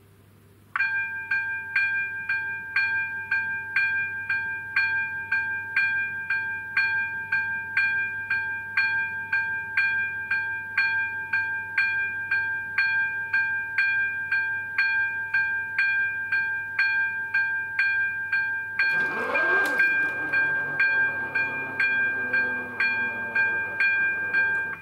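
Level crossing electronic warning bell starting up about a second in and ringing in a fast, even rhythm, about two strikes a second. Near the end comes a clunk and a falling mechanical whine as the barrier drive starts to lower the boom.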